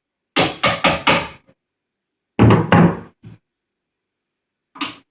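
Sharp metal knocks as the nut on the oil press is tightened with a hammer and wrench: a quick run of about four blows, then a second run of two or three a couple of seconds later, and a fainter pair near the end.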